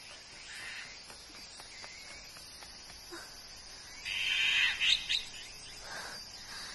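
Garden nature ambience: a steady, faint, high insect chirring with bird calls, which grow loudest as a cluster of short chirps about four seconds in.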